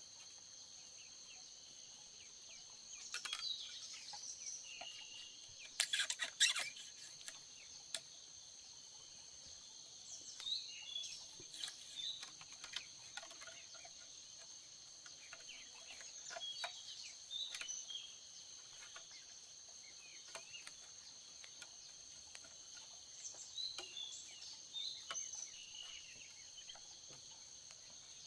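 Steady high-pitched insect drone with scattered bird chirps, and a few sharp clicks or cracks, loudest about six seconds in.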